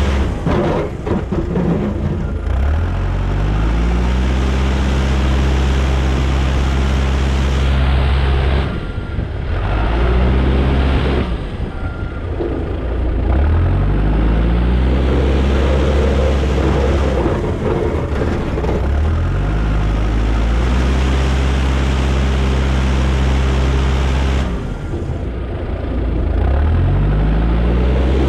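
Caterpillar backhoe loader's diesel engine working snow. Its revs dip and climb back up several times as the machine loads and moves.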